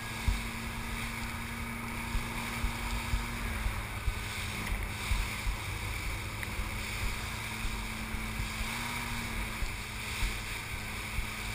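Fast rescue boat running at speed: a steady engine drone that dips slightly in pitch about three and a half seconds in and comes back up near the end. Rushing water and spray come off the hull, and wind buffets the microphone.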